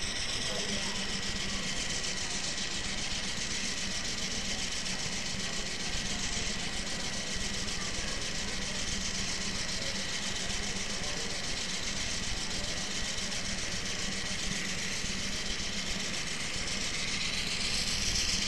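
Diesel locomotive engine running steadily: a constant drone with a steady hum, a faint thin whine and a hiss over it, swelling a little louder and hissier near the end.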